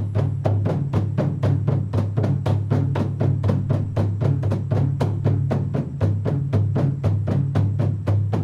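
Jatong dado, a long wooden drum with a deer-skin head, beaten in a fast steady rhythm of about five strokes a second, its deep tone alternating between two pitches.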